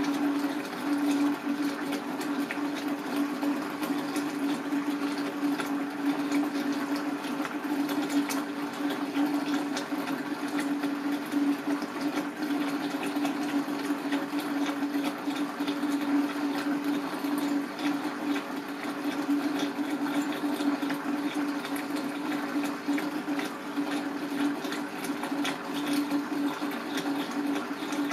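Steady water noise with a constant low hum and fine crackling clicks throughout.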